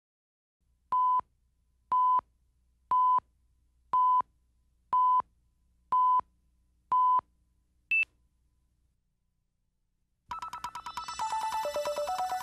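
Broadcast tape countdown: seven short, identical test-tone beeps, one a second, then a single shorter, higher beep. After about a second of silence, music starts about ten seconds in.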